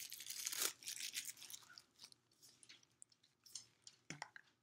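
Plastic crinkling and clicking as a pink microphone-shaped blind-box capsule and its wrapping are worked open by hand. The crinkling is densest in the first second, then thins out into scattered clicks.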